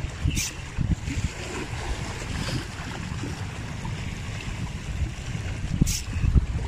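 Small waves washing and lapping over breakwater rocks, with gusty wind rumbling on the phone's microphone; two brief sharper splashes, one about half a second in and one near the end.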